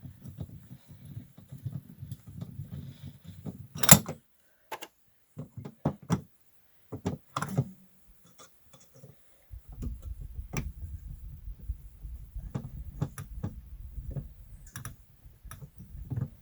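Scattered clicks and knocks of hand work, fitting and screwing an electrical outlet into a battery box, with one sharp click about four seconds in the loudest. A low rumbling noise runs under the clicks at the start and again through the second half.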